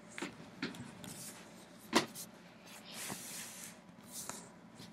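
Handling noise from a laptop being picked up and moved: a few light clicks and bumps, one sharper knock about two seconds in, and brief rustling.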